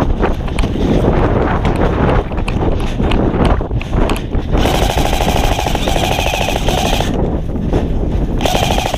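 Airsoft electric rifle firing on full auto: a long burst of rapid shots about halfway through, lasting a couple of seconds, then a shorter burst near the end.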